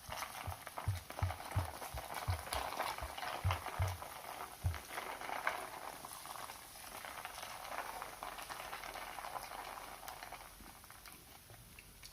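Fanta fizzing over ice cubes: a dense crackle of popping bubbles that slowly dies away, with several dull knocks of the cubes settling in the first few seconds.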